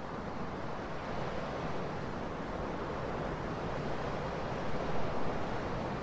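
Ocean waves washing ashore in a steady rushing surf, swelling a little near the end.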